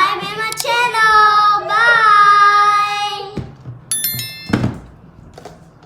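A child singing long held notes with music, stopping about three and a half seconds in, followed by a brief high chiming jingle.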